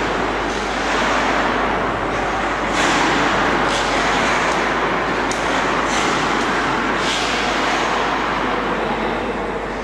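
Hockey skate blades carving and scraping across the ice: a steady loud hiss, with sharper scrapes about once a second as the edges bite in.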